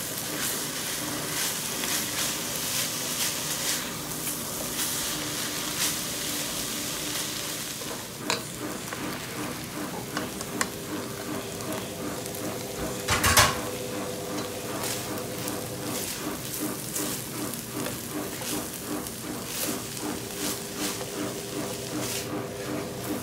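Shredded meat and julienned carrots sizzling in a nonstick pot as they are stir-fried, the spatula scraping and tossing in quick repeated strokes. A little past halfway there is one brief loud knock as green beans are tipped in, and the sizzling and stirring carry on in a steady rhythm.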